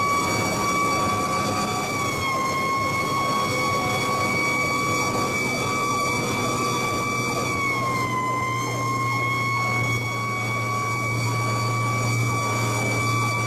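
Tiller ladder fire truck's siren held at a steady high pitch, heard from inside the cab, dipping slightly in pitch twice. The truck's engine runs underneath, getting stronger in the second half.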